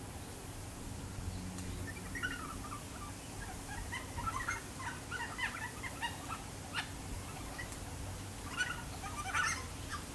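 Yellow-tailed black-cockatoos calling: a run of short calls in quick succession, then a few louder calls near the end.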